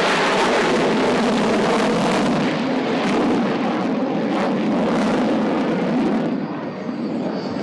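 AH-64 Apache attack helicopter flying a display pass overhead: loud, steady engine and rotor noise that eases off somewhat about six seconds in.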